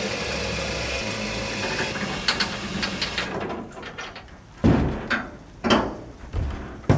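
Power liftgate on the bus's rear running steadily as the platform folds up, stopping about three seconds in. A few heavy clunks follow as the big rear doors are swung shut.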